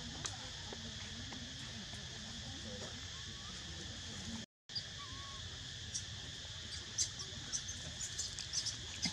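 Steady drone of crickets or cicadas in the background, cut off for an instant about halfway through, with a scatter of sharp clicks near the end.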